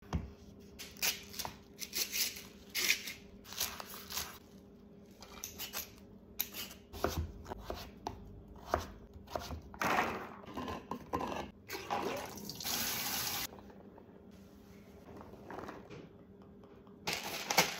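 Kitchen food-prep sounds: a run of sharp knocks of a knife cutting butternut squash on a wooden cutting board, then rustling and handling noise with a short hiss.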